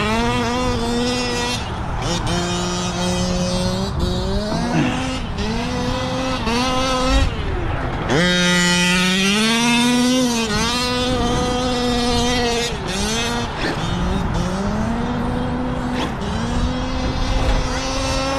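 Electric RC car's motor and drivetrain whining, the pitch gliding up, holding and dropping again and again as the throttle is worked. There is a brief thump about seven seconds in.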